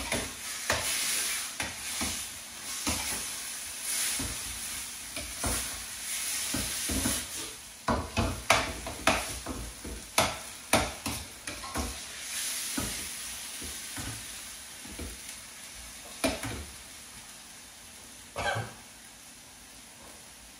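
Chicken pieces sizzling in a thick onion, tomato and spice curry sauce in a pan while a utensil stirs and scrapes them, knocking against the pan many times. The stirring thins out over the second half, the last knock about eighteen seconds in, leaving a softer sizzle.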